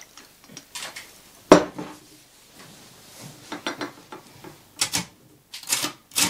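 A last faint trickle of tea into a porcelain cup, then a single sharp clink about a second and a half in as the porcelain teapot is set down on the wooden table. Near the end come bursts of quick clacks from typewriter keys as typing starts.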